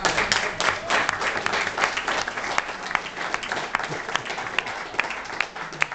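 A roomful of seated guests applauding, dense clapping that gradually thins and softens toward the end.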